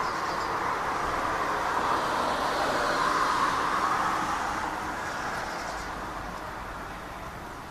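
Steady rushing noise of a passing vehicle, swelling to a peak about halfway through and then slowly fading.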